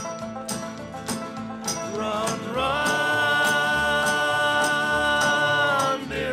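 Live acoustic string-band music in a country style, with banjo, acoustic guitars and upright bass. About two and a half seconds in, singing comes in on one long held note over the picking and holds for about three seconds.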